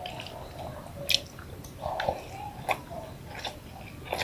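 A person chewing soft food, white rice with boiled eggplant, close to the microphone: wet mouth smacks and irregular clicks, the sharpest about a second in and near the end.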